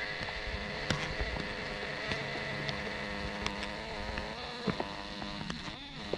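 A swarm of giant honey bees (Apis dorsata) buzzing close around their nest as a steady drone, with a few sharp clicks from the comb being cut.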